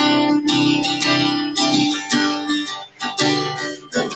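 Acoustic guitar strumming chords in a steady rhythm, with the last strums near the end as the song closes.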